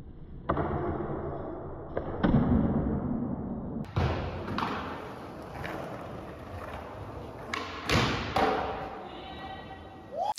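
Skateboard being ridden and popped: several sharp wooden knocks and landing thuds, with the rumble of urethane wheels rolling on pavement between them.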